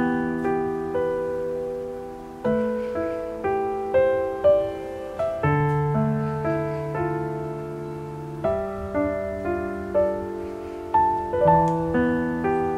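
Background piano music: a slow, gentle piece of single notes struck and fading over low notes that change every few seconds.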